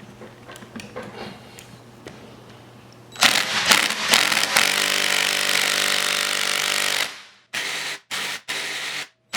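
A few small handling clicks, then a power tool runs loudly for about four seconds from about three seconds in, followed by three short trigger bursts near the end.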